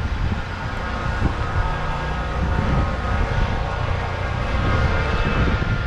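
A steady mechanical drone with a heavy low rumble and a faint whine over it.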